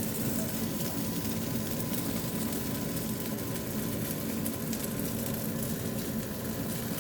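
Glutinous rice cakes frying in oil in a pan: a steady, dense sizzle with a constant hum underneath.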